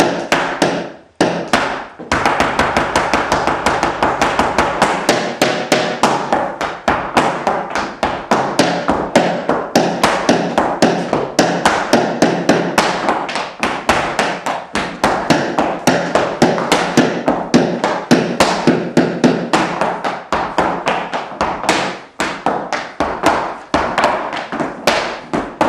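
Flamenco footwork with a cane: shoes and cane striking the floor in a fast, rhythmic run of sharp taps, with a couple of brief pauses.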